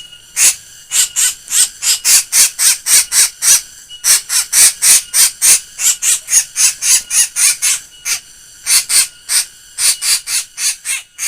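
A black bird giving a fast series of harsh, laughing 'ngek-ngek' calls, about four a second, in three runs broken by brief pauses.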